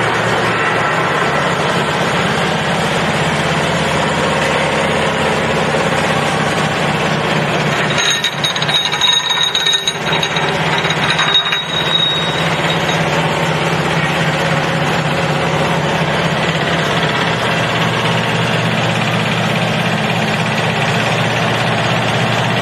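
Vibrating feeder running: a steady, loud mechanical hum and rattle from its vibrator drive. From about 8 to 12 seconds in it turns into a rougher, uneven clatter with a high ringing tone.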